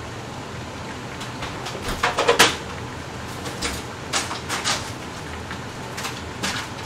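Kitchen knocks and clatters, like a door or drawer being worked and things handled: a loud cluster about two seconds in, then shorter ones around four and six seconds. Under them runs a steady hiss.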